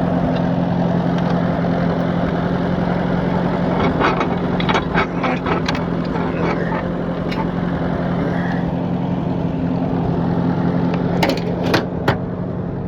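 Tractor engine running steadily at an even pitch, with a few sharp clicks and knocks, a cluster about four seconds in and another near the end.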